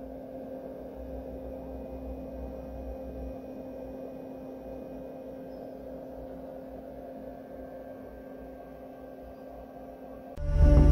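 12 V fan heater's blower running steadily on speed 1: an even hum with air rushing through it. Loud music starts suddenly near the end.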